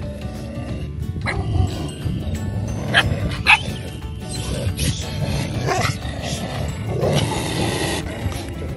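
Dogs giving several short barks and yips over background music.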